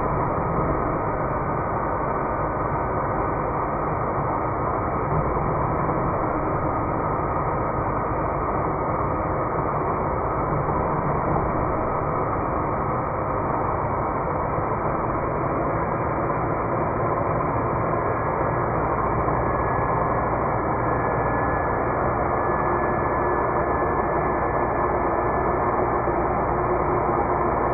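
Wen Portaband portable bandsaw cutting 1-inch pipe, its sound slowed down with the slow-motion footage into a deep, steady, drawn-out noise with faint lingering tones.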